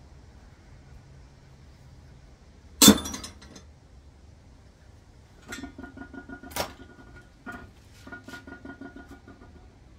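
Metal gearbox parts being handled: one loud metallic clank about three seconds in, then two runs of quick ringing clinks.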